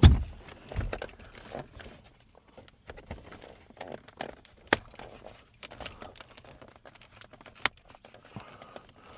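Hands handling the plastic center console lid and trim of a truck: a heavy thump at the start and another about a second later, then scattered sharp clicks and light rustling.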